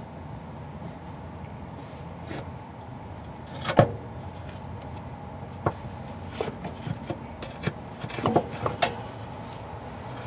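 Scattered metallic knocks and clanks as an old rubber-and-steel transmission mount is wrestled out by hand from between the transmission and the frame crossmember. The loudest knock comes about four seconds in, and a quick cluster of knocks comes near the end, over a steady low hum.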